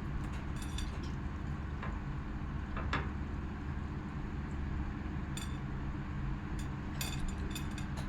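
Scattered light clinks of utensils against a plate and dishes during a meal, with a small cluster near the end, over a steady low hum.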